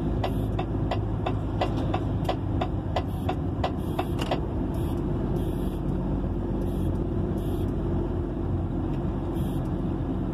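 Truck engine running steadily, heard from inside the cab as the truck rolls off the road into a yard. Over the first four seconds a regular ticking, about three a second, runs alongside it and then stops.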